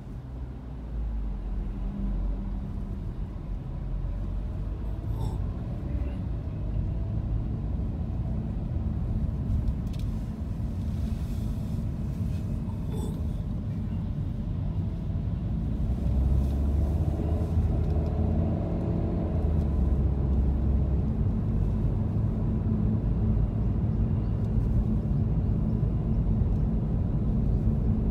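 A car driving in city traffic: a low engine and road rumble that gets louder about a second in as the car pulls away, and again about sixteen seconds in as it picks up speed.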